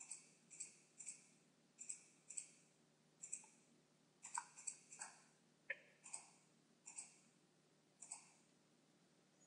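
Computer mouse button clicking faintly, about fifteen short, sharp clicks at an uneven pace, several in quick pairs.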